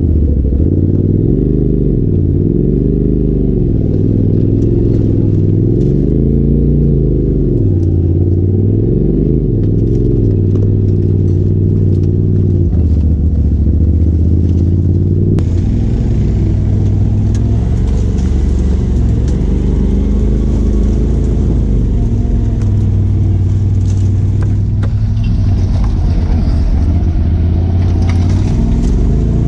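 Polaris RZR Turbo S side-by-side's engine running under way on a trail. Its pitch rises and falls over and over as the throttle is worked, then holds steadier from about halfway, with more rattle and hiss over it.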